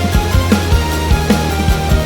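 Background music with a steady beat, about three drum hits a second, over sustained notes.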